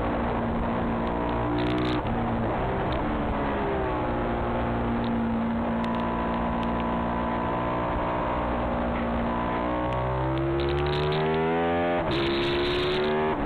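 Ducati 996R's V-twin engine at race pace, heard on-board. It climbs and shifts up about two seconds in, drops as the bike slows into a long corner, holds a steady note through the corner, then climbs hard from about ten seconds, with a quick upshift near the end.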